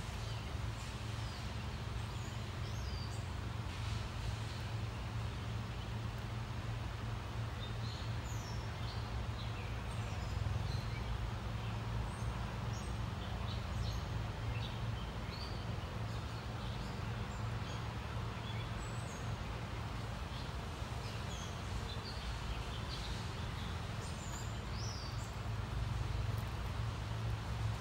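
Small birds chirping in short, scattered calls over a steady low hum.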